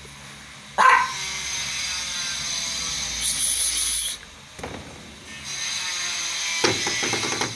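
A dog barks once, sharply, about a second in, over a steady machine-like whirring hiss. A quick run of rattling clicks comes near the end.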